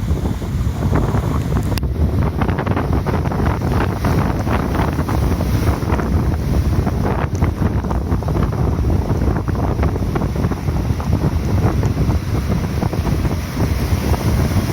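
Heavy surf rolling in and breaking, under strong wind buffeting the microphone with a steady low rumble.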